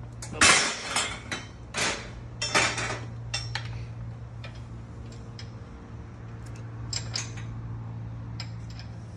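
Metal clanks and rattles from the mini golf cart's rear seat and metal rack frame being handled and fitted, with a few loud knocks in the first three seconds and then lighter, scattered clicks.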